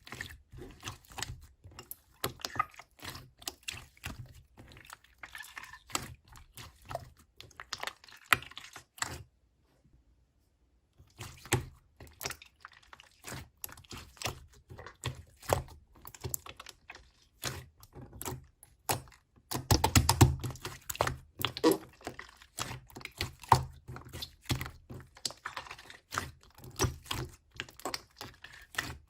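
Light-green slime being squished and poked by hand, giving rapid, irregular clicks and small pops that stop for about two seconds partway through, with a louder run of squishing later on.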